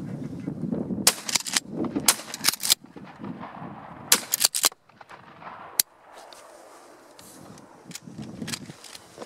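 Shotguns firing in quick strings of about three shots each, three strings within the first five seconds, then a single shot and a couple of fainter ones near the end.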